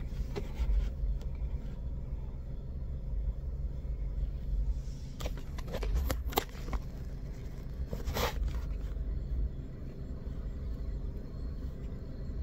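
Car engine idling, a steady low hum heard from inside the cabin, with a few brief knocks and rustles from the phone being handled between about five and eight seconds in.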